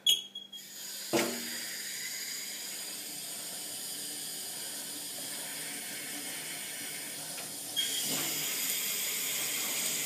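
Wall-mounted two-handle mixer tap turned on: a brief squeak as the handle turns, then water gushing from the spout into the sink as a steady hiss from about a second in, stepping up louder about eight seconds in as the flow is opened further.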